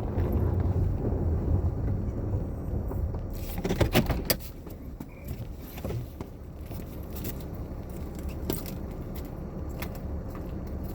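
A vehicle's low running rumble, louder at first, with a cluster of clicks and rattles about four seconds in, after which the rumble is quieter and broken by scattered clicks.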